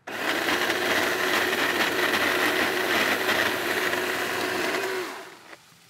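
Battery-powered Makita 10-inch top-handle chainsaw cutting through tree branches: it starts suddenly at full speed, runs steadily with a high whine for about five seconds, then winds down.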